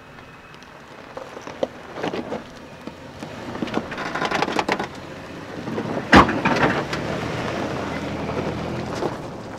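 Toyota 4Runner's tyres crunching and popping over gravel and rocks as it crawls through a rocky washout, with a sharp knock about six seconds in, the loudest sound. The engine runs steadily at low speed near the end.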